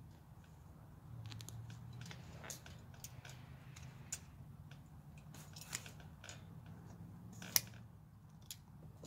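Hand-sewing rabbit furs: a run of irregular sharp clicks and snaps as the needle is worked through the pelt and the thread pulled tight, the loudest snap about seven and a half seconds in, over a low steady hum.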